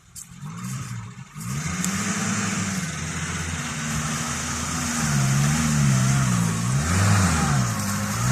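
Suzuki Samurai 4x4's engine revving hard under load as it climbs off-road, its pitch repeatedly rising and falling. It comes in loud about a second and a half in, after a quieter start.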